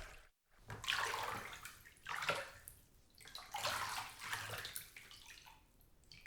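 Small waves lapping and washing against the shore in repeated swells, one about every second or so.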